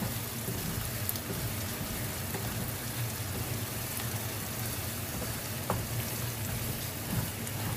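Shrimp paste (alamang) sautéing in oil and vinegar in a frying pan, a steady sizzle, while a wooden spatula stirs it, with a few light scrapes and taps of the spatula against the pan.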